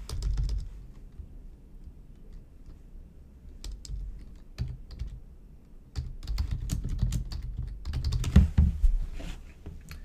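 Typing on a computer keyboard: quick clicking keystrokes in bursts with short pauses between them, and one heavier knock about eight seconds in.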